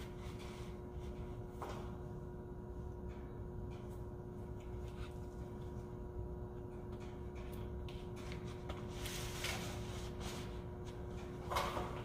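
Pleated HVAC air filter sliding and scraping in the sheet-metal filter rack as it is put in, a few brief rubs with the loudest near the end. Under it, a steady machinery hum with a constant tone.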